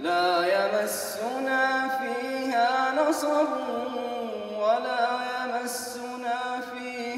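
A man's voice reciting in melodic Quranic chant (tajweed) into a microphone: long held notes that slide and ornament between pitches, in several drawn-out phrases.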